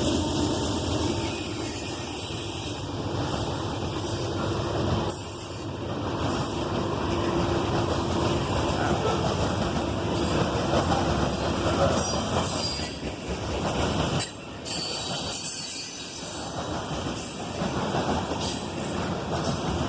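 Loaded grain train's covered hopper cars rolling past, a continuous rumble of steel wheels on rail with rapid clacking over the joints. A steady tone runs through the first seven seconds or so.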